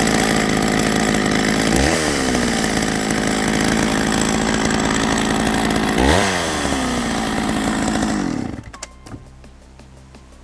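Two-stroke Pro Mac chainsaw running at high revs while cutting wood. Its engine pitch dips and recovers twice under load. The sound ends abruptly about eight and a half seconds in.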